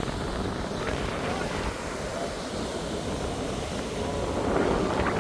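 Wind buffeting the microphone in low, choppy rumbles over a steady wash of ocean surf, growing louder near the end.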